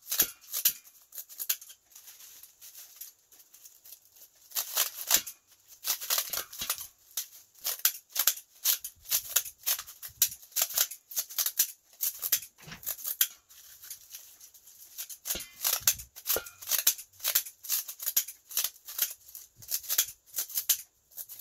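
Kitchen scissors snipping through sheets of dried laver (gim): short, dry snips in quick runs of several a second, with brief pauses between runs.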